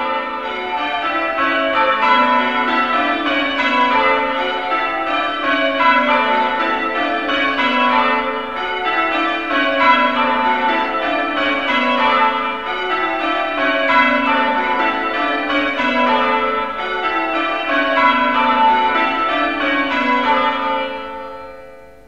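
A peal of six church bells being rung, the bells struck one after another in repeating descending runs. Near the end the ringing stops and the last strokes die away.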